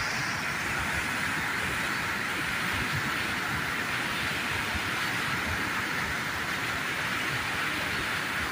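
Floodwater pouring over a dam weir and churning below it: a steady, unbroken rushing of heavy white water.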